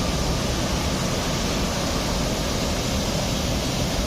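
Small waterfall rushing steadily, a low drop but with fast, forceful water.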